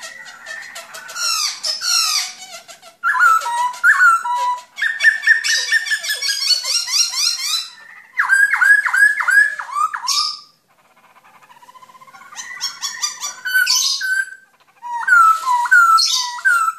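Black-throated laughingthrush singing: rapid runs of repeated downslurred whistles and varied phrases, broken by a couple of short pauses.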